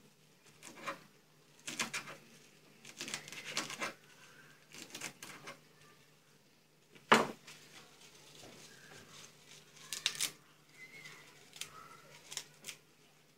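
Kitchen knife chopping mint leaves on a plastic cutting board: irregular clusters of sharp chops, the loudest single one about seven seconds in, thinning out to a few light knocks near the end.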